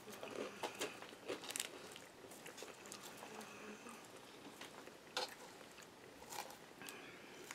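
Close-up chewing of a mouthful of crisp romaine salad with bacon, faint crunches coming thickest in the first second and a half. A plastic fork clicks and scrapes in a paper bowl, with one sharp click about five seconds in.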